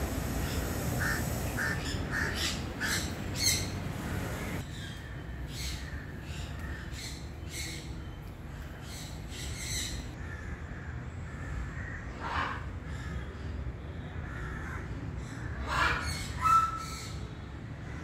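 Birds calling, short harsh calls repeated many times at irregular intervals, with a brief higher whistled note near the end. A low steady rumble runs under the first four seconds and then stops.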